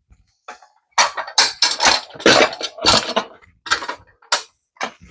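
Metal clanking and rattling from a dirt bike wheel on a Harbor Freight motorcycle bead breaker stand as the tire is turned and the breaker reset: a busy clatter for about two seconds, then three single sharp clicks.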